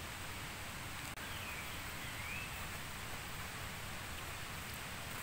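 Steady outdoor background noise, with a single faint bird call that dips and rises about a second in.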